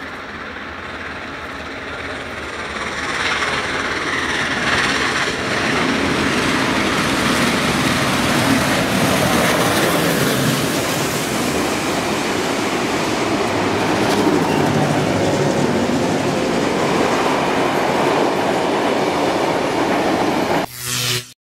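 Garratt steam locomotive 6029 and its carriages passing close by at speed. A rumble builds as the engine nears about three seconds in, then a loud, steady clatter of wheels over the rail joints as the carriages roll by. It cuts off suddenly near the end.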